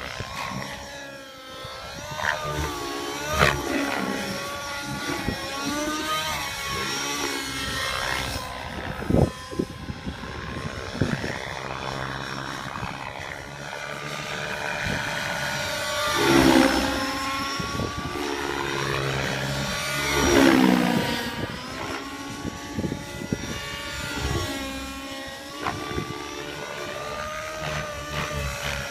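Align T-Rex 700 RC helicopter's YS 91SRX nitro glow engine, fitted with a Hatori muffler and tuned rich, running in aerobatic flight. The engine and rotor note keeps rising and falling as the helicopter manoeuvres, swelling loudly twice a little past halfway through.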